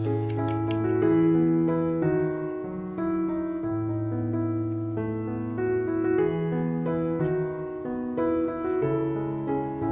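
Background piano music: slow, gentle notes over long held bass notes.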